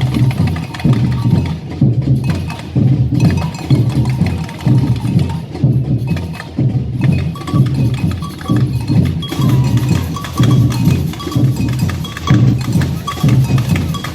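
Samba percussion band playing: deep bass drums beat a steady pulse under quick, sharp higher drum and bell strikes.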